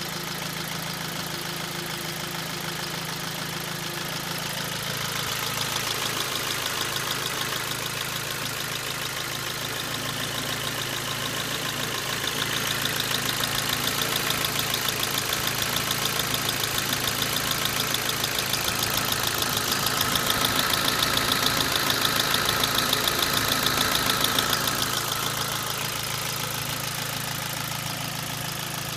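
Ford Focus II 1.6-litre 100 hp four-cylinder petrol engine running warm with a rapid, even knock. The engine sound grows louder twice, most from about 12 to 25 seconds in, then drops back.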